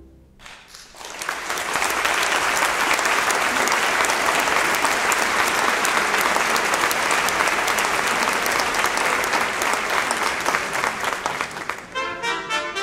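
Audience applauding, swelling over the first two seconds and then holding steady. About twelve seconds in, the orchestra starts playing a brass-led passage over the last of the applause.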